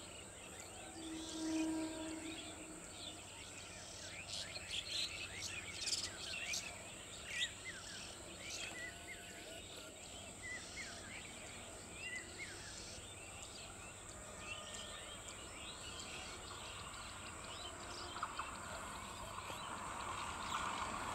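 Many small birds chirping over a faint, steady outdoor background. Near the end, the noise of an approaching electric local train starts to rise.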